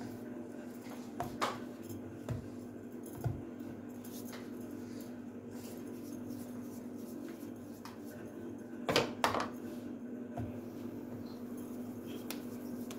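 Hands working pieces of dough on a wooden board: soft handling with a few short taps and knocks, the loudest a pair close together about nine seconds in, over a steady low hum.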